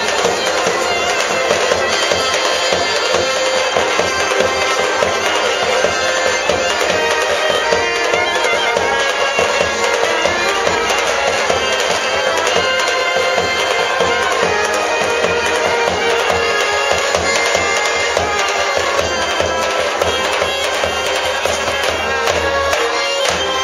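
Live traditional Greek folk music from a small band with a trumpet, playing continuously.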